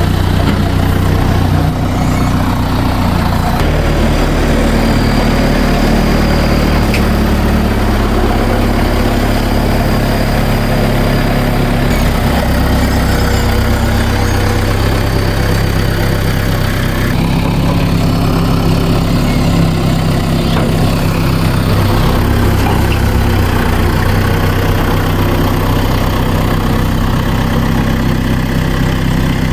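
Tractor engine running steadily while the loader bucket scrapes out the cow hut, its pitch stepping up and down as the load and speed change.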